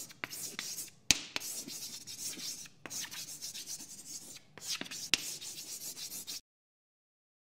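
Chalk scratching on a blackboard in a quick series of drawing strokes, with a few sharp taps of the chalk against the board. It cuts off suddenly near the end.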